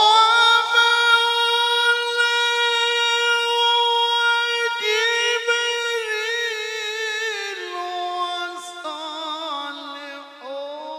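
A male qari's voice in melodic Quran recitation (tilawah). He holds one long high note steady for about five seconds, then moves into ornamented, wavering phrases that step down in pitch.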